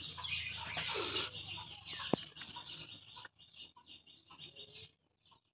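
Chickens clucking with other birds chirping, busy at first and thinning out after about three seconds, with one sharp tap about two seconds in.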